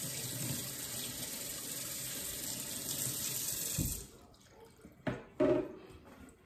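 Kitchen faucet running into a stainless steel sink while hands are washed, shut off abruptly about four seconds in. It is followed by a brief, louder handling sound about a second later.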